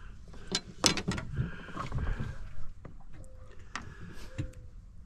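A few sharp clicks and knocks from gear being handled aboard a small fishing boat, over a low uneven rumble.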